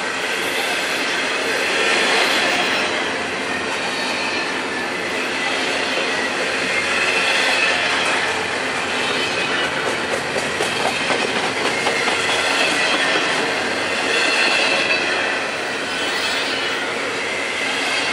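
Double-stack container well cars of a freight train rolling past close by: a steady loud noise of steel wheels on the rails, with a high wheel squeal that swells and fades several times.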